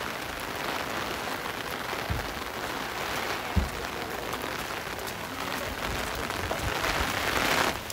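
Heavy rain falling steadily on wet stone paving, an even hiss that swells a little near the end, with a couple of brief low thumps.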